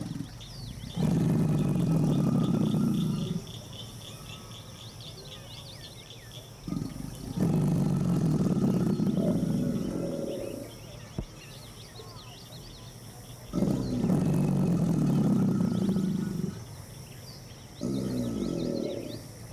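Alligator bellowing: four long, low bellows of two to three seconds each, a few seconds apart. Faint high bird chirping goes on behind them.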